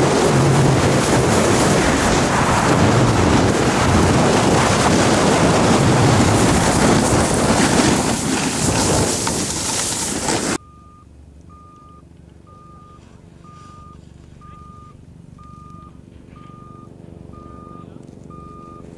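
Loud wind buffeting the camera microphone during a ski run downhill. About ten seconds in it cuts off, leaving a quiet background with a steady high electronic beep repeating about once a second.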